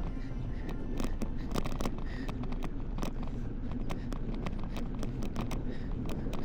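Riding a bicycle: steady wind rumble on the action camera's microphone, with irregular sharp clicks and rattles from the bike.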